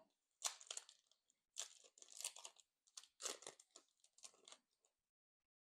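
Foil wrapper of a Yu-Gi-Oh! booster pack being torn open and crinkled by hand, a series of short crackly rustles over about four seconds that stop near the end.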